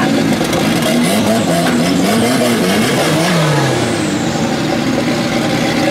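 Light 4x4 off-road race car engines revving as a car pulls away, the pitch rising and falling repeatedly, with one long drop in pitch about three seconds in.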